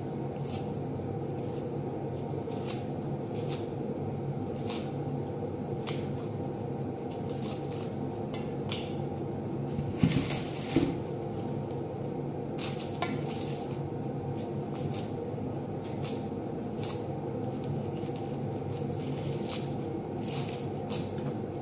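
Red onions being peeled and trimmed with a small knife: short crisp crackles and snips of the dry papery skins, coming every half second or so, over a steady low hum. About ten seconds in there are two louder knocks.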